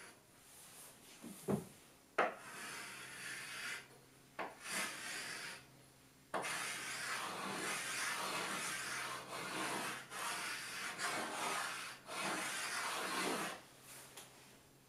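Chalk scraping on a chalkboard in stroke after stroke as numerals are drawn and traced over. There are a couple of sharp taps of chalk on the board early on, and a long unbroken run of scraping through the middle.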